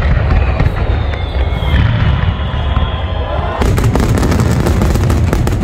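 Fireworks display: a continuous low booming rumble of bursting shells. About two-thirds of the way through, a dense crackle of many sharp pops sets in.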